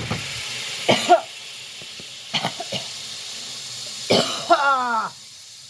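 A man coughs and clears his throat in three bouts, the last drawn out, set off by breathing jalapeño pepper vapours. A pan sizzles steadily underneath.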